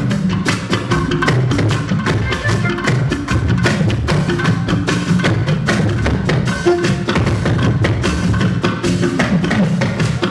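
Drum-led music: a fast, steady run of sharp percussion strikes over a low bass line.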